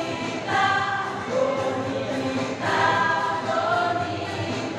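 Women's choir singing together, holding long notes that move to a new pitch every second or so.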